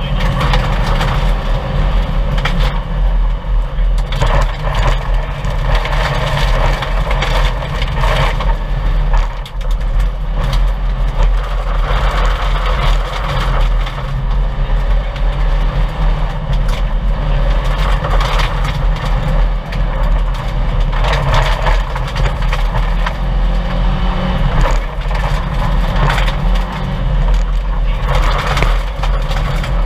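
1998 Subaru Impreza 2.5 RS's flat-four engine running hard at stage speed on a gravel rally road, heard from inside the cabin, with a constant clatter of gravel and stones hitting the underbody and wheel wells.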